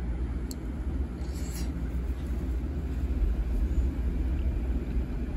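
Steady low rumble of road traffic, with a brief faint hiss about a second in.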